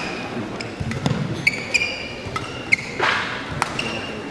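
Badminton rally: a shuttlecock is struck sharply by rackets several times, with players' shoes squeaking briefly on the court mat between shots.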